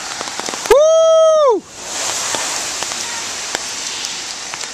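Rain falling on wet pavement and foliage: a steady hiss that swells in suddenly about two seconds in, with a few sharp drop ticks. Before it, a single held "Woo!" shout.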